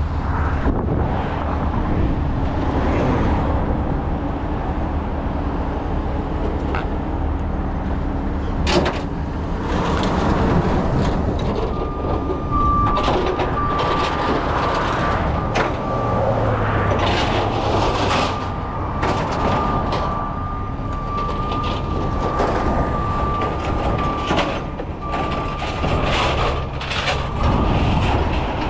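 Heavy truck diesel engine running steadily, with repeated metal clanks and knocks, and a steady high whine that comes in about twelve seconds in and holds.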